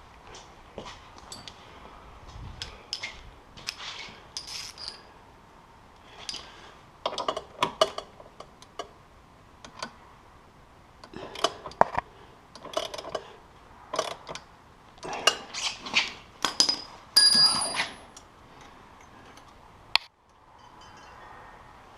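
Hand tools and metal parts clinking, clicking and scraping at irregular intervals during work on a snowmobile's exhaust can, busiest in the second half, with a sharp knock near the end.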